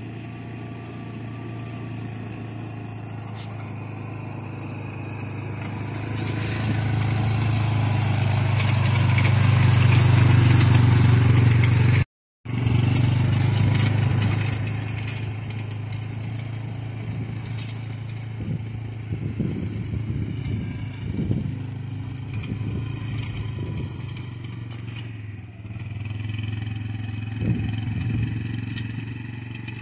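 ATV engine running at a steady pace as it drives across a field, growing louder as it comes closer and then dropping out for a moment about twelve seconds in. After that it runs on more quietly, with a few rattles.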